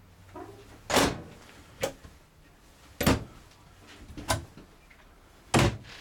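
A microwave door and wooden kitchen cabinet doors being shut and opened: five sharp knocks with latch clicks, roughly a second apart, the first and last loudest.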